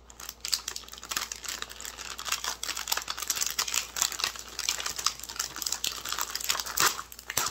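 Foil Oreo cookie wrapper crinkling as it is squeezed and pulled open by hand: a continuous dense crackle, loudest just before the end as the seal gives.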